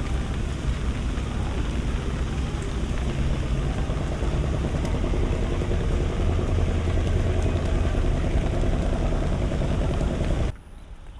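Steady engine and traffic rumble with an even hiss over it. It cuts off abruptly near the end.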